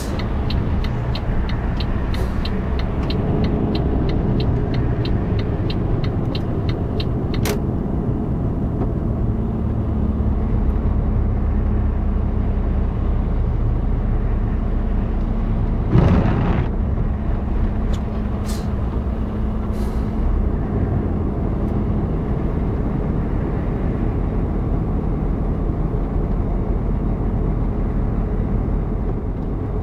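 Steady engine and tyre rumble inside a lorry cab on the move. For about the first seven seconds there is evenly spaced ticking, about three ticks a second, from the turn indicator. About halfway through comes one short, loud hiss of air brakes.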